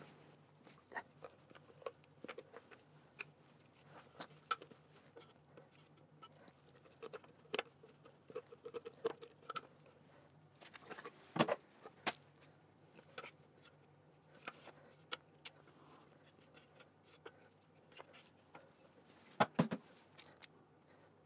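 Thermomix spatula scraping and knocking against the stainless-steel Thermomix mixing bowl as sticky bread dough is scraped out onto baking paper: scattered soft clicks and taps, the loudest about eleven seconds in and again near the end.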